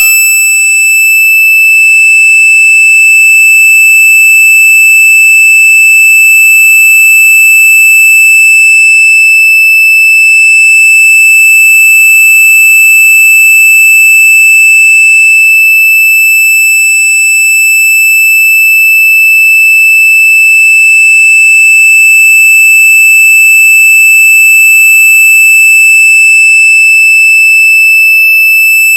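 A single high-pitched electronic tone, very loud, held steady without a break or any change in pitch, with faint higher overtones above it.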